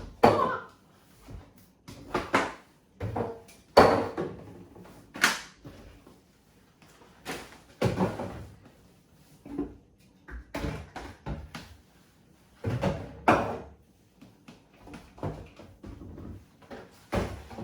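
Plastic bottles and tins being lifted out of a cupboard under a kitchen sink: a string of uneven knocks, clunks and scrapes as they are handled and set down.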